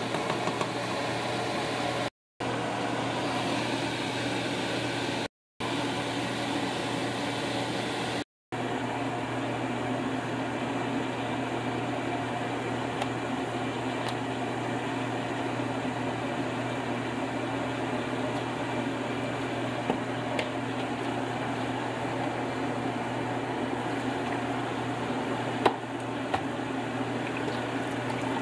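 Steady fan whir with a low hum underneath, broken by three brief silent gaps in the first nine seconds; a couple of light knocks near the end.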